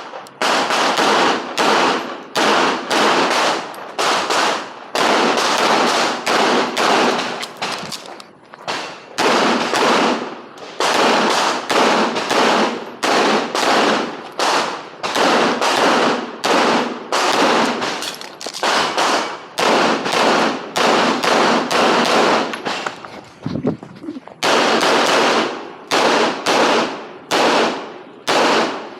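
Handgun shots fired rapidly in quick strings during a practical shooting stage, dozens of sharp cracks with short pauses between strings, the longest a little past a third of the way in and again near the end.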